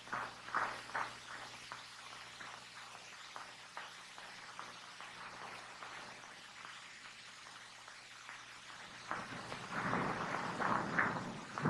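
Footsteps crunching and rustling over dry ground and undergrowth, with a steady hiss underneath. The steps grow louder and closer together near the end.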